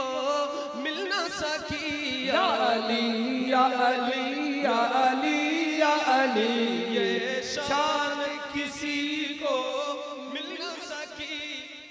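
Male naat reciter singing a long, drawn-out, ornamented vocal line into a microphone, with the pitch wavering and sliding between held notes; it fades out near the end.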